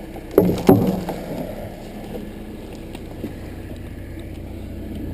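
John Deere backhoe engine running steadily, with two loud knocks about half a second apart under a second in.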